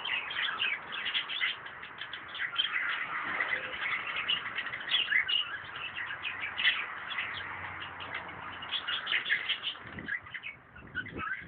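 Birds chirping busily: many short, overlapping chirps in quick succession, with a couple of soft thumps near the end.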